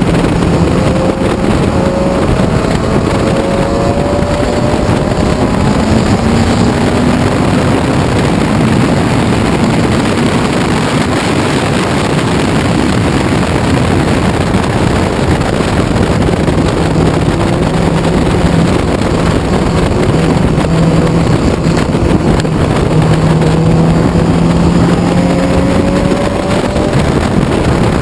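1968 Ginetta G16 race car's engine running hard at racing speed, heard from the open cockpit over heavy wind rush on the microphone. The engine note climbs in pitch several times as it accelerates.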